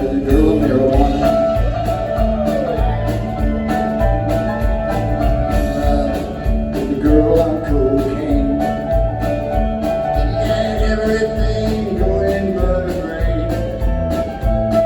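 Live rock band playing the opening of a song: drums keeping a steady beat under electric guitars, loud and continuous.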